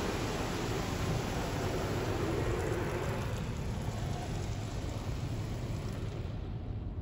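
Water spray from a Ryko SoftGloss MAXX 3 touch-free car wash hitting the car, heard from inside the cabin, fading gradually as the spray moves off; the hiss dies out near the end, leaving a steady low hum.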